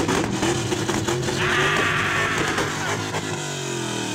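Modified car engine revved hard and held high, then the revs fall away about three seconds in.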